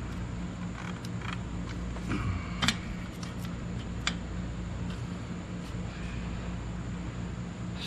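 Light, scattered clicks and taps of a small screw and hand tool being worked at the throttle body, with one sharper click about two and a half seconds in, over a steady low background hum.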